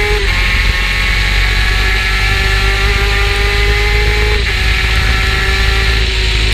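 Superkart's two-stroke engine running at speed, its pitch slowly climbing and then dropping sharply twice, about a quarter second in and at about four and a half seconds, under a steady rushing noise.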